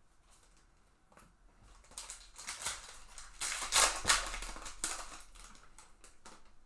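Trading-card pack wrapper crinkling and tearing as it is pulled open by hand, a run of scratchy crackles loudest about halfway through.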